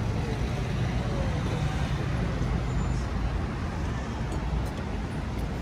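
Road traffic on a city boulevard: cars driving past at low speed, a steady low engine rumble with tyre noise.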